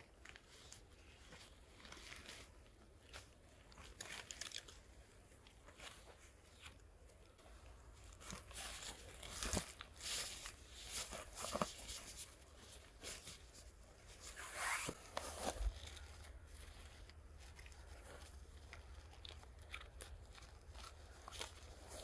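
A tarp's fabric rustling and crinkling, with crunching of snow and dry pine needles, as the tarp's bottom corner is fastened at the foot of a tree. The handling comes in irregular bursts with a few sharp clicks, busiest in the middle.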